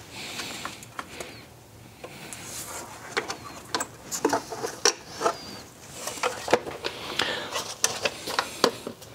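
Air cleaner housing of a 1968 BMW 1602 being worked onto a Weber carburetor, giving repeated light knocks, clicks and scraping as it is shifted and pressed. It is not quite seating.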